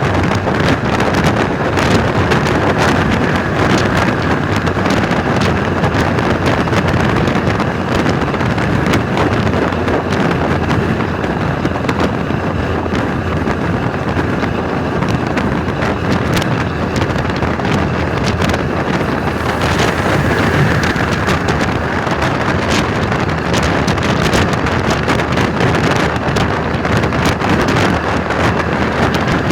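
Volvo B10M bus's diesel engine running steadily, mixed with heavy wind buffeting on the microphone.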